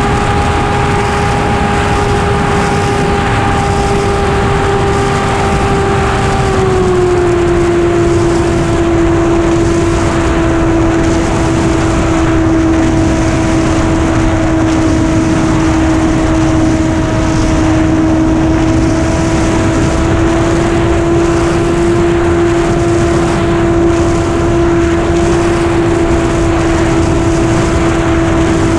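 RC model airplane's engine and propeller running steadily, heard from the plane itself with wind rush over the airframe. About six seconds in, the pitch drops a step as the throttle is eased back, then holds steady until it begins to rise again at the very end.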